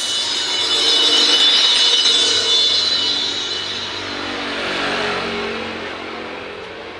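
Loud sound-check playback through homemade line array speakers with JBL 12-inch drivers: a dense hissing, engine-like sound whose pitch sweeps down and back up midway. It fades toward the end and then cuts off suddenly.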